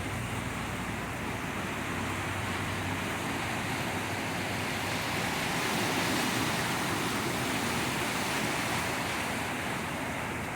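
Steady rushing of water from the flooding in heavy rain, swelling a little around the middle, with a low hum that fades out in the first few seconds.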